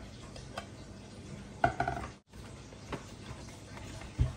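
Hand tools and the plastic blender base being handled during reassembly: small clicks and taps, a sharp clatter about a second and a half in, and a low thump near the end as the base is set down upright on the table.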